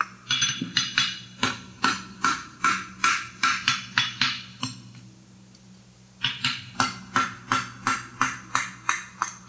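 Hand hammer striking red-hot horseshoe steel on a Scott Mighty Boy anvil in quick, even blows, about three a second, with a ringing clang on each. The strikes pause for about a second and a half midway, then resume. This is the farrier rounding the lateral heel of a sidebone shoe into a circle.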